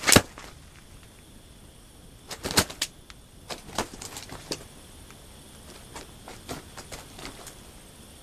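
Irregular sharp knocks and clicks over faint outdoor noise: a loud one right at the start, a cluster of loud ones about two and a half seconds in, then smaller, scattered ones.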